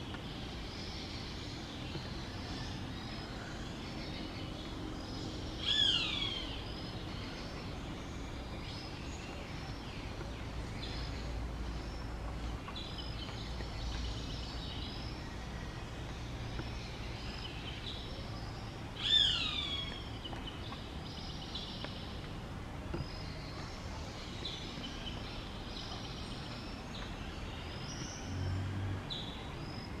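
Roadside hawk giving two loud, high, falling screams, about thirteen seconds apart, over faint chirping of other birds.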